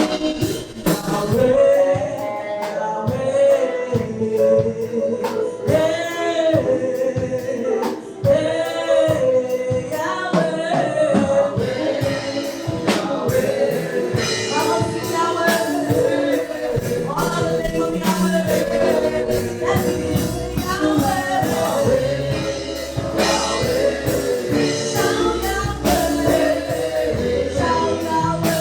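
Gospel choir singing a praise song, backed by instruments with a steady drum beat.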